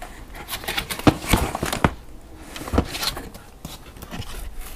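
Cardboard box being opened by hand: its flaps and the cardboard and paper packing inside rustling, with a quick run of sharp knocks and scrapes about one to two seconds in and a few more near the end.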